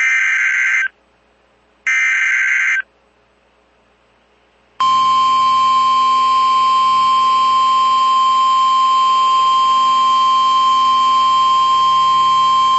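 Two short bursts of NOAA Weather Radio SAME digital header data, each about a second of buzzing, a second apart. About five seconds in, the steady 1050 Hz warning alarm tone starts and holds. The tone signals that a new emergency alert is about to be read, here a tornado warning.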